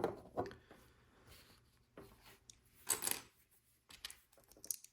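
Plastic LEGO pieces clicking and clattering as they are handled and pressed together: a handful of short, irregular clicks and rustles, the loudest about three seconds in.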